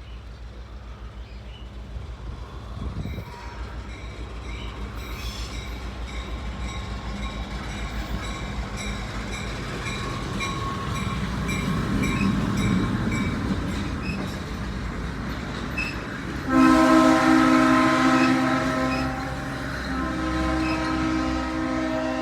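Diesel-hauled passenger train approaching, its engine rumble growing louder, with a bell dinging at an even pace in the first half. From about two-thirds of the way in, the locomotive's multi-tone air horn sounds one long blast, breaks briefly, and sounds again.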